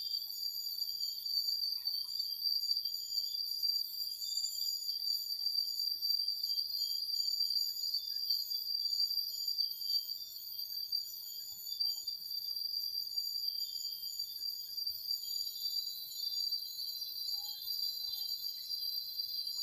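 Steady high-pitched chorus of forest insects, an unbroken shrill trilling with no speech over it; a second, slightly lower tone joins near the end.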